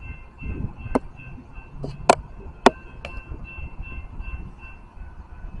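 A grade-crossing warning bell rings in an even, repeating pulse as a Metra commuter train approaches the station. Several sharp clicks cut through it, the loudest about two and two and a half seconds in.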